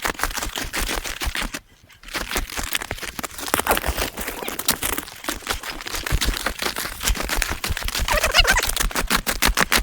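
Fast, continuous crunching and clicking of snowshoe footsteps on snow, broken by a short pause about a second and a half in.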